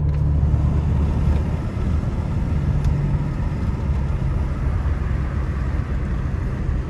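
Lexus engine and exhaust while driving, heard from inside the car: a steady low drone that eases after about a second and a half into a rougher low rumble with road noise.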